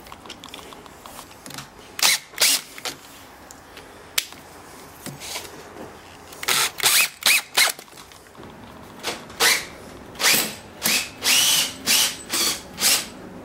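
Cordless drill driving wood screws into pre-threaded holes in hardwood, in a series of short trigger bursts, each motor spin-up rising in pitch.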